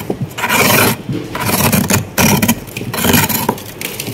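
Freezer frost being scraped by hand: about four rough scraping strokes with short pauses between them.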